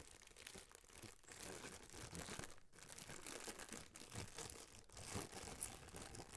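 Faint rustling and crinkling of packaging being handled, with a few light ticks.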